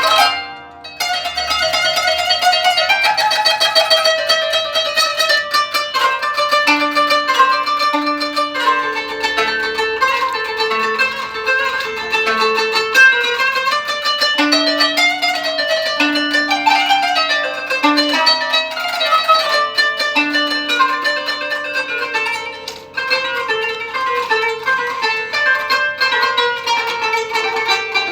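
Instrumental improvisation (doğaçlama) on a plucked string instrument: quick runs of picked notes with some held tones, pausing briefly near the start and again about three quarters of the way through.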